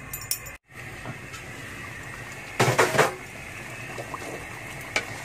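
Chili and spice paste frying in hot oil in a pan, a steady sizzle with spattering. About two and a half seconds in comes a brief loud clatter of the metal pan lid coming off.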